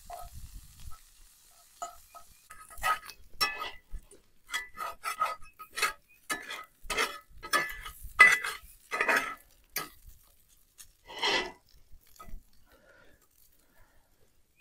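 Metal spoon and spatula scraping and stirring meat in a skillet: a run of about a dozen short scrapes, each with a ringing metallic tone, from about three seconds in until near the end.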